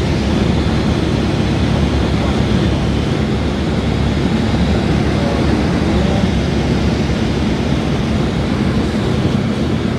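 Cessna 172's engine and propeller running with wind rush past the airframe, heard from inside the cabin as a loud, steady drone on the landing approach.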